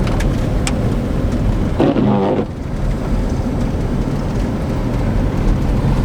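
Dodge Durango's engine running under throttle while the SUV drives donuts in snow, a steady low drone mixed with tyre noise. A short louder burst comes about two seconds in.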